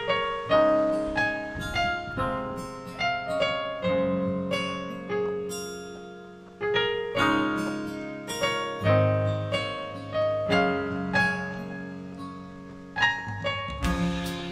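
Background piano music: notes and chords struck one after another, each ringing and dying away.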